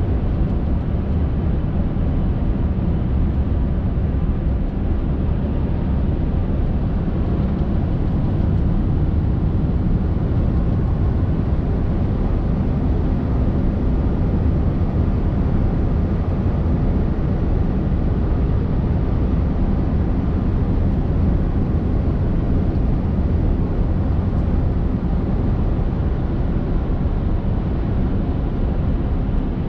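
Steady low drone inside the cab of a Scania R580 truck under way: its V8 diesel engine running at an even cruise with road noise from the snow-packed surface.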